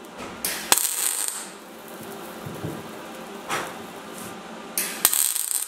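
MIG welder tacking a new steel sill panel, the arc crackling and hissing in a few short bursts of about a second or less, each starting with a sharp snap as the arc strikes.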